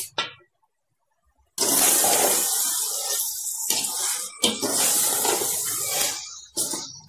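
Chicken pieces sizzling in hot oil in a steel pot as they are stirred with a ladle, a loud steady hiss that starts about a second and a half in.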